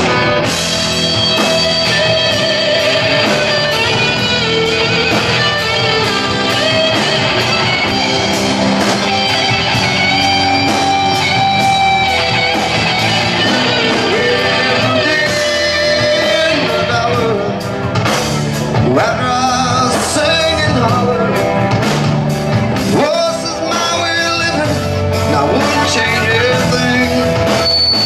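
Rock song by a band, with singing over electric guitar and a steady drum beat.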